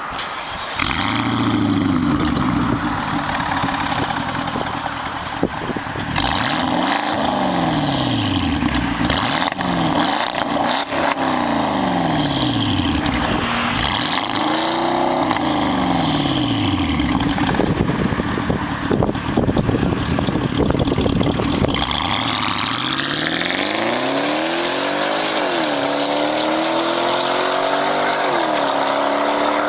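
Porsche Cayenne Turbo S twin-turbo V8 revved again and again while standing, each blip rising and falling back, heard from behind at the exhaust. About two-thirds of the way in it pulls away and accelerates hard, the pitch climbing with two gear changes.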